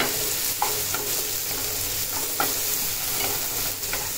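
Chopped onion and tomato sizzling in oil in a non-stick frying pan as the tomato cooks down, with a spatula scraping and tapping the pan several times as it stirs.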